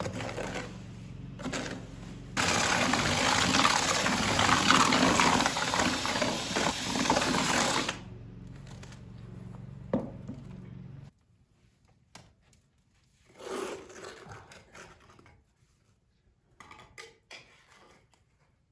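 A small electric motor hums steadily, with a louder rough noise for about five and a half seconds near the start. The hum cuts off suddenly past the middle, and a few faint knocks and scrapes follow.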